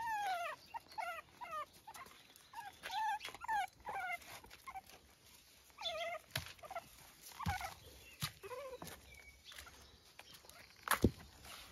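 Young puppies whimpering and yipping in short squeaky cries as they play-fight, a quick string of them at first and a few scattered cries later. A single sharp knock sounds near the end.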